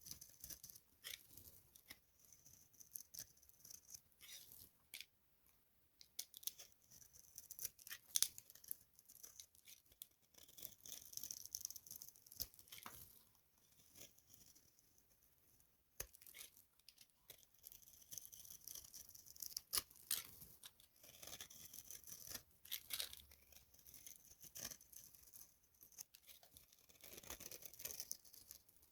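Dry soap being crushed and broken by hand: soft crumbly scraping and crackling in irregular bursts, with sharp cracks and clicks, the loudest about 8 seconds in and again near 20 seconds.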